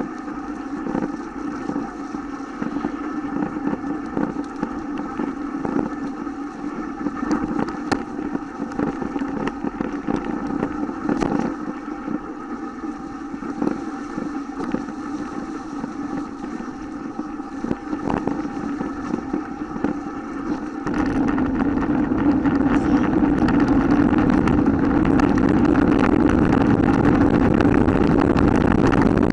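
Mountain bike coasting downhill, heard from a camera on the bike: a steady hum with scattered rattles and knocks over the bumps of a leaf-covered dirt trail. About two-thirds of the way in, a loud wind rumble on the microphone comes in sharply as the bike picks up speed.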